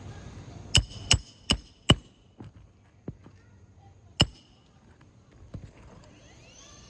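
Hammer blows on the roof during shingle repair work: four quick, loud strikes with a short metallic ring, then a few lighter knocks and one more strong strike about four seconds in.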